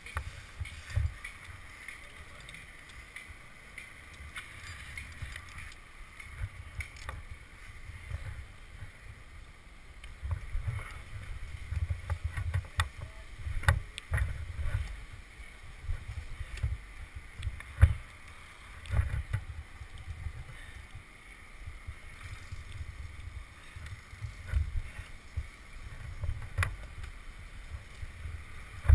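Gusty wind rumble on a head-mounted microphone, with handling noise and a few sharp clicks of climbing gear as a climber repositions his rope around the trunk.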